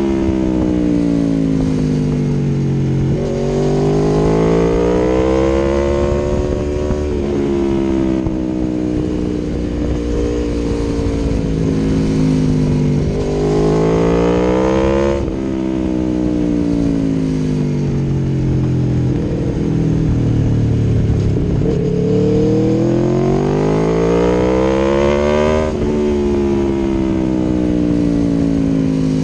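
Aprilia Tuono V4 1100's V4 engine through an Akrapovic exhaust, riding: the engine note climbs in pitch under throttle, then drops sharply and winds down, three times over, with a low rush of wind underneath.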